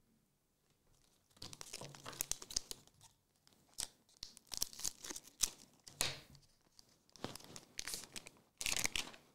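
A Magic: The Gathering booster pack wrapper being torn open and crinkled by hand, in a run of short crackling rips that start about a second and a half in.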